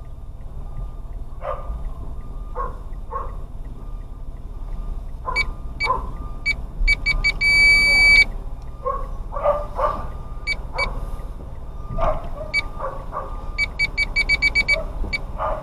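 Electronic beeping over a steady low vehicle hum: a few short beeps, one long beep about halfway through, then a fast run of beeps near the end. Short mid-pitched calls come now and then throughout.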